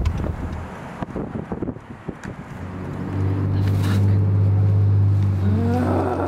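Car engine running, its low hum growing louder about halfway through and then holding steady.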